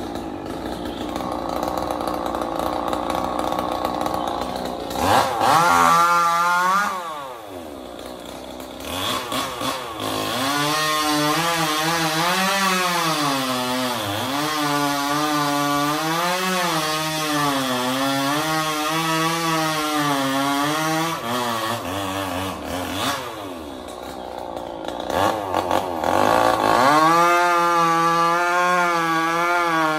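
Two-stroke chainsaw revving and cutting into trembesi (rain tree) wood, its pitch wavering as it bogs under load. It drops back to a lower speed about seven seconds in and again for a few seconds after the twenty-second mark, then revs up to cut again.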